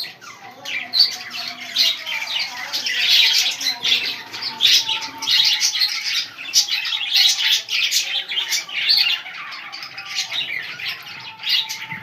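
Several budgerigars chattering together in a steady, busy stream of overlapping high chirps and squawks.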